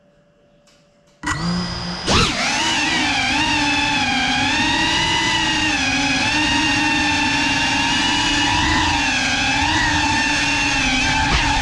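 The brushless motors and ducted propellers of a GEPRC CineLog 35 cinewhoop drone start up about a second in and then whine steadily, the pitch wavering up and down with the throttle.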